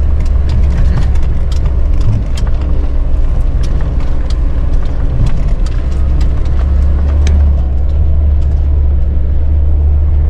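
Off-road vehicle driving slowly over a rough, rocky dirt track, heard from inside the cabin: a steady low rumble of engine and tyres, with scattered clicks and knocks as it jolts over the ruts and stones.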